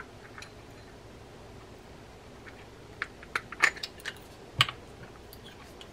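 Parts of a Penn Slammer III 4500 spinning reel being handled as its spool is fitted back on. After a quiet start, a handful of sharp clicks and taps come about three to four and a half seconds in.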